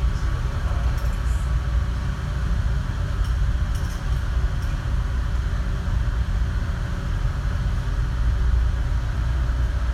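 Steady low rumble aboard a car ferry under way, the ship's engines and hull noise running evenly without change.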